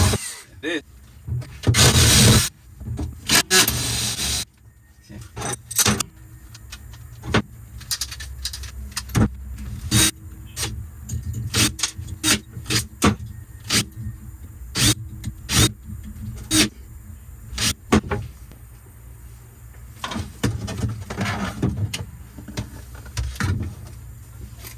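Power drill whirring in two short bursts as it drills out steel rivets. These are followed by a long run of irregular sharp metallic clicks and knocks.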